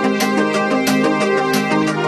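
Background music with a steady beat and a bright, layered melody.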